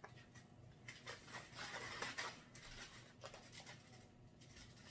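Faint rustling and soft scraping from a paper-wrapped stick of butter rubbed over ears of corn on a foil-lined tray.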